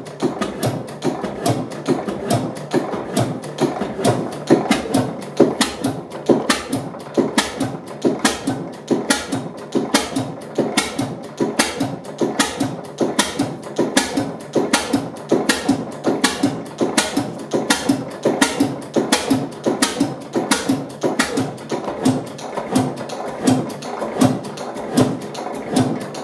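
Large vertical single-cylinder stationary engine with twin flywheels running steadily, a regular rhythmic clatter of knocks several times a second over a steady mechanical rumble.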